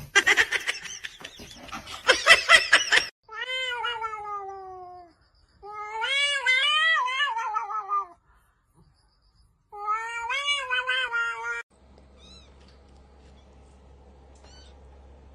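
A cat yowling in three long, drawn-out calls: the first sliding down in pitch, the second wavering up and down, the third shorter. Before them come a few seconds of rapid rasping noise, and after them only a faint low hum.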